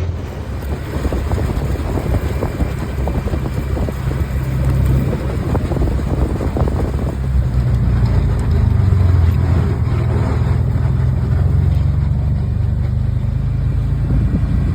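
Can-Am off-road vehicle's engine running steadily as it drives along, with irregular rattles and knocks from the ride.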